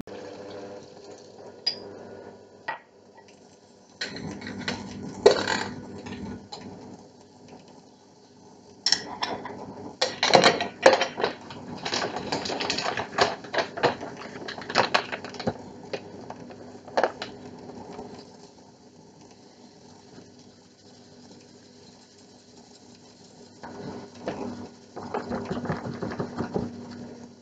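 Electric stand mixer starting up about four seconds in and running steadily while ingredients are added to the batter. Through the middle come clinks and knocks of bowl, beater and containers.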